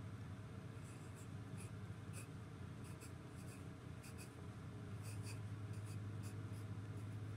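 A pencil scratching on paper in short, irregular strokes as letters are written out by hand, starting about a second in, over a steady low hum.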